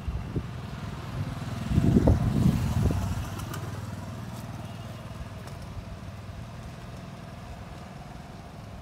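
Motor vehicle engine running with a low hum, loudest about two seconds in and then slowly fading.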